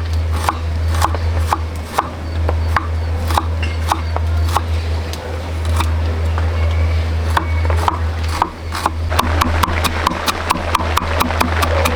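Sharp woody knocks or taps, irregular at first and then quicker and more even, about four a second, from about nine seconds in, over a steady low hum.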